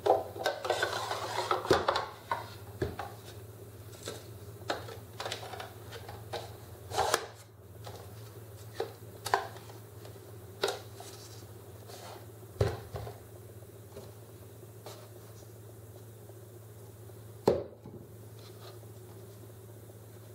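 Plywood wine boxes and a glass bottle being handled: a stretch of scraping and rubbing in the first two seconds as the bottle slides in the box, then scattered wooden clicks and knocks as the box and its hinged panel are moved and set down, with one sharp knock near the end. A steady low hum sits underneath.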